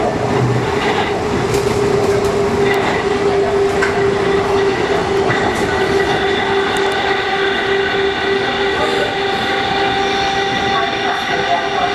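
Onboard sound of a KCR East Rail MLR electric multiple unit motor car running at speed: a steady traction motor whine, with a set of higher tones coming in about five seconds in, over the noise of the wheels on the rails.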